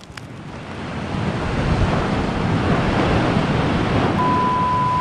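A steady rushing noise like surf or wind, swelling up over the first second or two: background noise laid over the soundtrack to cover copyrighted audio. About four seconds in, a steady high beep tone joins it and holds for about a second.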